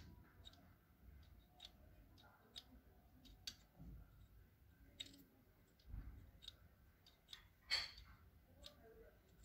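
Faint, irregular small clicks and taps of a removed EGR valve's plastic housing and mechanism being handled in the fingers, with a louder click near the end.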